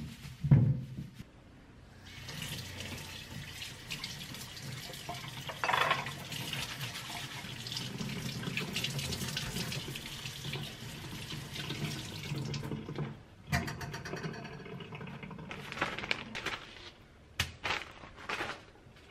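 Kitchen tap running into a stainless steel sink while potatoes are rubbed clean under the stream, a steady hiss of water that shuts off about two-thirds of the way through. A few short knocks follow as the washed potatoes are set into a metal mesh colander, and a plastic bag rustles near the start.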